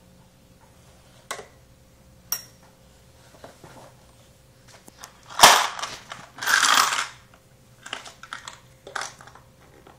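Tools and a plastic toolbox being handled: a couple of light clicks, a sharp knock about five and a half seconds in with a rattling clatter of loose tools just after, then several lighter clicks near the end.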